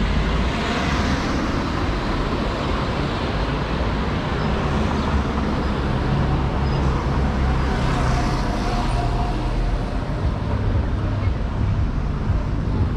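Steady city street traffic: cars and other motor vehicles running and passing.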